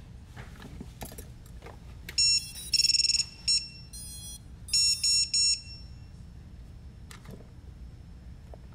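An FPV quadcopter beeping as it powers up on a freshly connected battery: a short beep, a longer one and another short one, then three quick beeps. These are the power-up tones that show the electronics are alive after the repair. Light handling clicks come before them.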